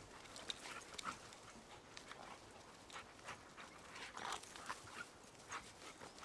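Two black Labrador retrievers play-fighting, making faint, short dog noises in quick irregular bursts.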